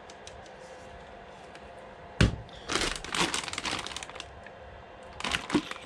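A sharp click about two seconds in, then plastic packaging crinkling as it is handled, in two spells.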